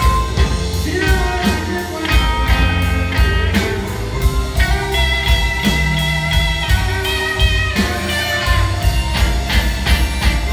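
Live blues band playing, with electric guitar, piano, upright bass and drums over a steady beat, heard from the audience.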